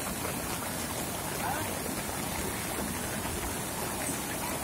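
Muddy floodwater rushing across a road in a steady, unbroken noise, with heavy rain falling on an umbrella overhead.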